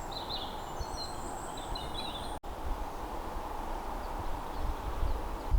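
Birds chirping in woodland over a steady outdoor background noise; the birdsong breaks off at a sudden cut about halfway through, leaving only the steady background.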